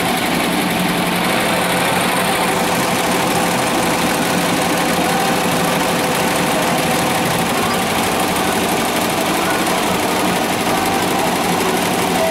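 Multi-needle commercial embroidery machine stitching a baseball cap on its cap frame: a steady, rapid mechanical clatter of the needle head running at speed.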